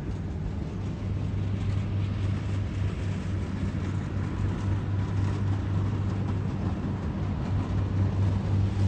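Two rice combine harvesters running steadily as they cut rice, their diesel engines a deep, even hum with the rattle of the threshing machinery over it. The sound grows a little louder as they come closer.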